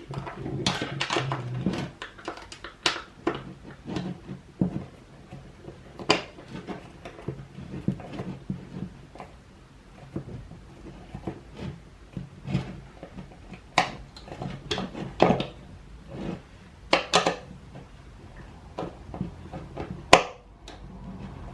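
Hand tools tightening the bolts and nuts that hold a skateboard truck to the deck: irregular metal clicks, clinks and knocks of tool on hardware and deck, some in quick pairs.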